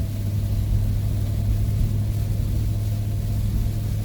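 Steady low drone of a van's engine and road noise, heard inside the cab while driving.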